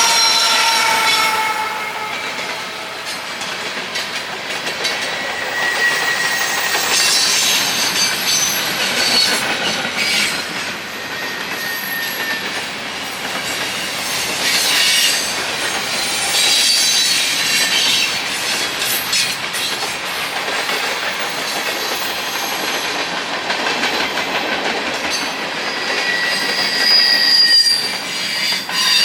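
A train rolling past with steady wheel-on-rail noise, and its steel wheels squealing in thin high-pitched tones that come and go through the passage.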